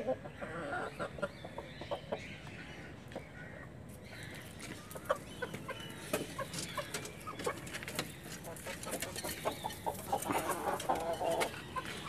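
A flock of desi Golden Misri chickens clucking, with short calls scattered throughout and a denser run of clucks near the end. Short clicks and knocks sound among the calls.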